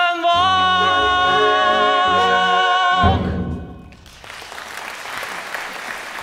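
A male singer holds the song's final sustained note over the orchestra's closing chords, which end with a loud low chord about three seconds in. The theatre audience then breaks into applause.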